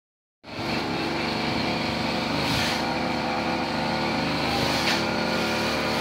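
Petrol grass-cutting machine's engine running steadily, drowning out the storm wind. It starts about half a second in.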